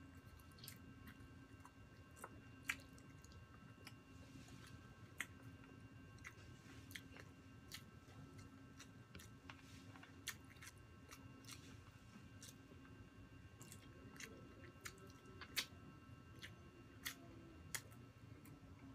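Close-miked mouth sounds of a person chewing and biting roast chicken eaten by hand: quiet, with scattered sharp wet clicks and smacks, a few louder ones, over a faint steady hum.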